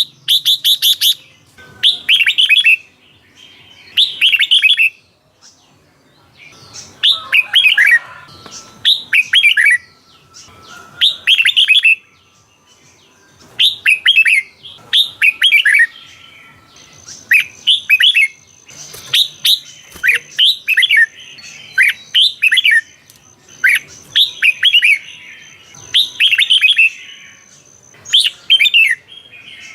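Red-whiskered bulbul singing: short, bright phrases of quick rising and falling notes, repeated every second or two with brief pauses between them.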